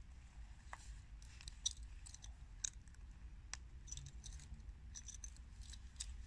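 Faint outdoor night ambience: a low steady rumble with scattered small clicks and ticks, two of them a little sharper, about a second apart, near the start.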